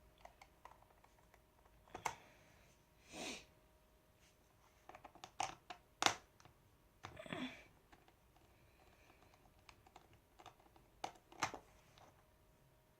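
Scattered small clicks and taps of a screwdriver working the screws out of a laptop's plastic back plate, with a couple of short scraping sounds.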